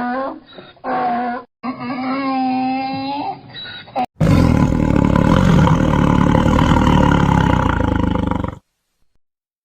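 Two recorded wild animal calls in turn: first three short pitched calls that waver in pitch, then a long, loud, rough call of about four seconds that stops abruptly.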